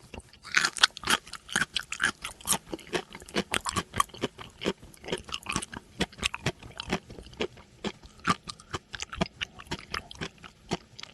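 An animal chewing crunchy food: a quick, irregular run of crisp crunches, several a second.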